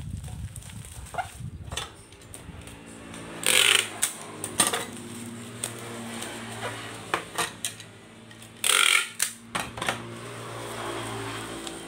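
Packing tape pulled off a handheld tape dispenser in two short, loud rips, with the crinkle of bubble wrap being folded and pressed around a parcel.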